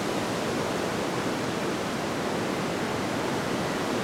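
A steady rushing noise, even and unchanging, with most of its weight in the low-middle range.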